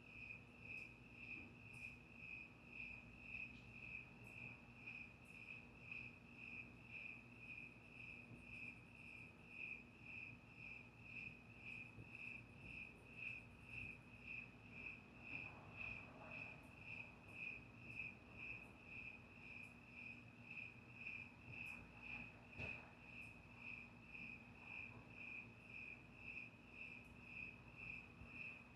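Cricket chirping steadily and faintly: one high, even-pitched chirp repeated about twice a second.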